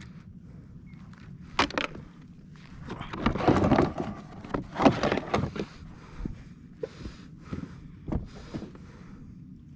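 Irregular knocks and thuds of gear being handled in a fishing kayak, with a couple of louder rustling, clattering bursts a few seconds in, over a low steady hum.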